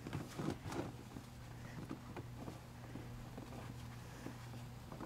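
Faint crunches and rustles of footsteps in snow and snow clothing, a few louder ones in the first second, over a steady low hum.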